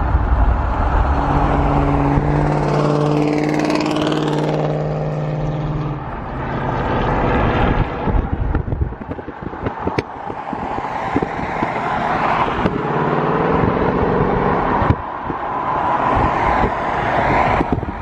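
Cars accelerating past on a highway, heard from a moving car with the window open: an engine's exhaust note builds and rises from about a second in, and a second one follows near the end as a grey Chevrolet Camaro pulls alongside, over steady wind and tyre noise.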